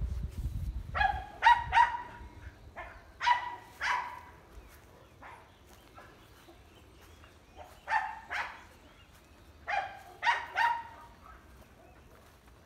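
A dog barking in short bouts of two or three barks, four bouts in all, with quiet pauses of a few seconds between them.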